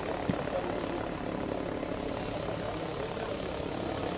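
Turbine-powered radio-controlled scale model Lama helicopter in flight: a steady rotor rush with a high turbine whine that slowly falls in pitch. A brief thump about a third of a second in.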